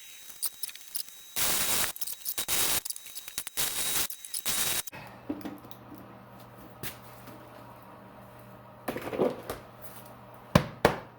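1987 Harbor Freight flux-core wire-feed welder tacking: a few short bursts of crackling arc, a couple of seconds in. Sharp knocks follow near the end.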